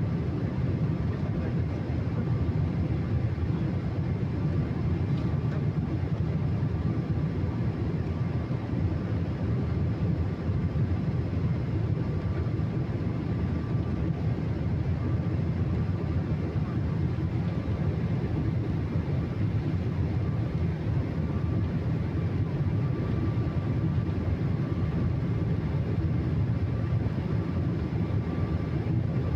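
Jet airliner engines heard as a steady low rumble with a faint high whine above it.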